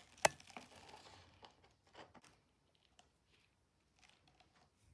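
One sharp click about a third of a second in, then faint scattered small taps and clicks: plastic mixing cups and silicone molds being handled while resin is moved from one mold to another.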